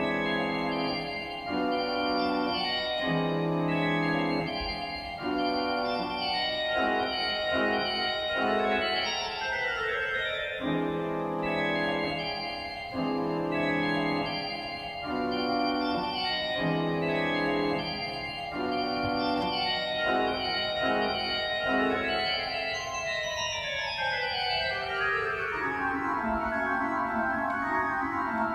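Church organ playing sustained chords that change roughly once a second; about three-quarters of the way through, the notes step steadily downward into a low held sound.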